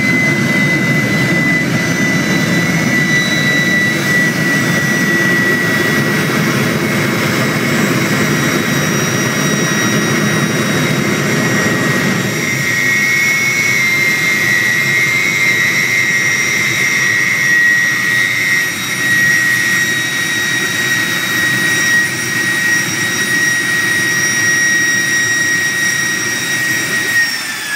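Turbomeca jet turbine on a Daihatsu Mira running with a steady high whine. A deep roar that comes with a large flame from the exhaust fills the first twelve seconds, then thins out as the flame dies down. Just before the end the whine starts to fall as the turbine begins to spool down.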